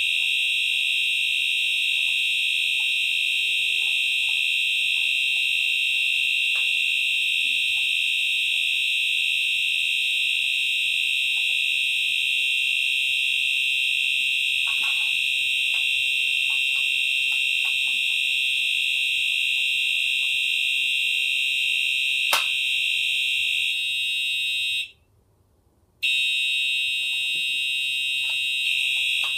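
Simplex TrueAlert 4903-9426 horn strobes sounding a steady, continuous high-volume horn tone, the fire alarm in alarm. A single sharp click comes about two-thirds through. Near the end everything drops out for about a second, then the horn resumes.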